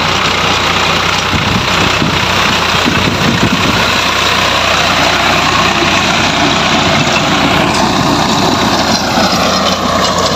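Swaraj 855 FE tractor's three-cylinder diesel engine running steadily under load while its rear rotary tiller churns the soil.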